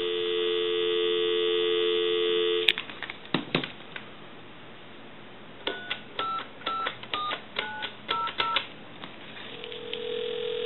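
Telephone line dial tone, a steady two-note hum, broken off after about three seconds by a few clicks. Then about seven quick touch-tone (DTMF) beeps as a number is dialled, and near the end a steady ringback tone starts as the call rings through.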